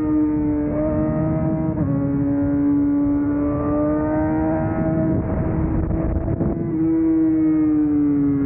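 Yamaha R6 inline-four sport-bike engine running at high revs under way. Its pitch steps up and down a few times with gear changes and glides slowly in between, rising through the middle and falling after a jump up near the end.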